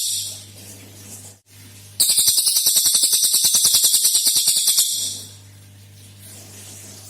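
A cililin bird giving its rapid rattling 'tembakan' (shot) trill, about thirteen pulses a second. The end of one trill fades out right at the start; after a short pause a second loud trill starts about two seconds in and lasts about three seconds. A low steady hum is heard in the pauses.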